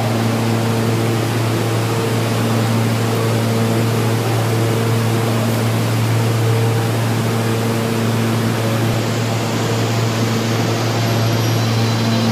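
A New York City subway train of R160 cars standing at the platform, its air conditioning and onboard equipment giving a steady hum with a strong low drone and a few faint tones that come and go.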